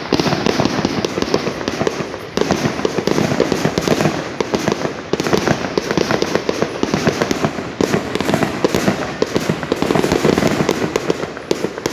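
Many fireworks going off at once in a dense, continuous barrage of bangs and crackling, with brief lulls about two and five seconds in.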